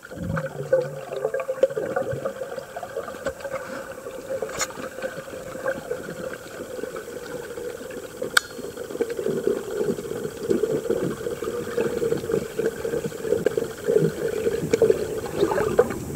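Underwater ambience picked up inside a GoPro's waterproof case: a steady, muffled water noise with scattered faint crackles. A sharp click comes about four and a half seconds in, and another about eight seconds in.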